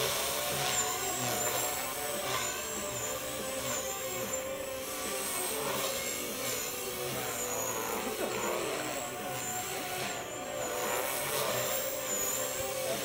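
Align T-Rex 250 electric radio-controlled helicopter flying: a steady high whine from its motor and rotors whose pitch wavers up and down about once a second.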